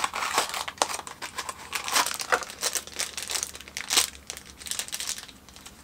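Crinkling and tearing of a small mystery-pin blind-bag wrapper as it is handled and ripped open, a run of irregular sharp crackles with a few louder snaps about two and four seconds in.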